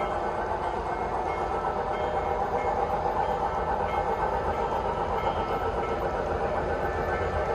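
O gauge three-rail model trains running on a layout: a steady rolling rumble of metal wheels on track.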